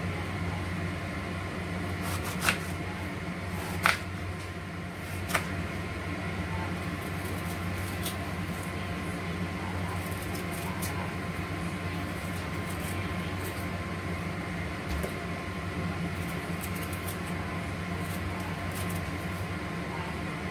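A knife knocking sharply on a cutting board three times in the first few seconds, with fainter ticks later, as fruit is cut and cored by hand. A steady machine hum runs underneath.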